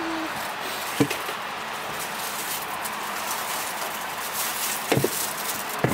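Steady wind noise outdoors, with a few knocks as purchases are set down in a car boot: one about a second in and two near the end.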